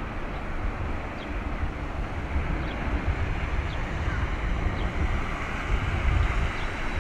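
Wind buffeting the microphone in uneven gusts over a steady rumbling noise, with a few faint short high chirps.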